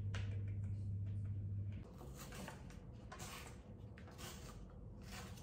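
Soft clicks of typing on a tablet keyboard over a steady low hum, which stops about two seconds in. Then a cup noodle's plastic seasoning sachet and packaging crinkle in several short bursts as they are handled.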